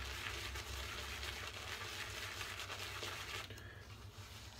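Damp shaving brush worked into a firm, dry puck of shaving soap in its tub, loading the brush with soap: a steady scratchy, crackling bristle noise that dies away about three and a half seconds in.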